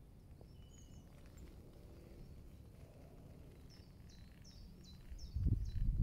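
Faint outdoor background in which a small bird calls a quick run of about six short, high chirps in the second half. About five seconds in, a loud, low rumbling noise comes in and carries on.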